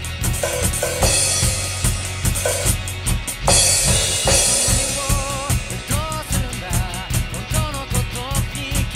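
A Pearl rock drum kit with Sabian cymbals is played along with a recorded rock song: a driving kick-and-snare beat with cymbals over the band. From about five seconds in, a sung vocal melody comes in.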